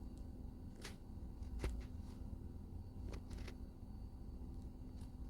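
A low steady background hum with a handful of faint, soft clicks spread through it, typical of a phone being handled and tapped.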